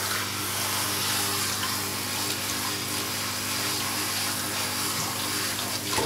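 Handheld shower head spraying water onto a small long-haired dog in a bathtub: a steady hiss of running water.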